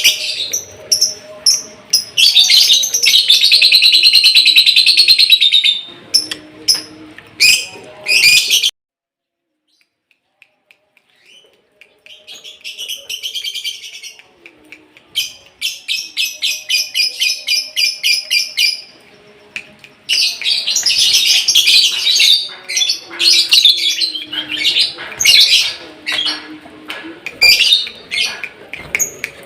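Lovebird in molt singing: long runs of fast, high chattering trills with short breaks, stopping dead for a few seconds about a third of the way in before starting again.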